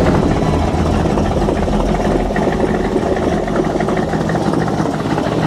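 A 2016 Wilson Watercar wooden runabout's engine running steadily as the boat cruises at low speed, with water washing along the hull.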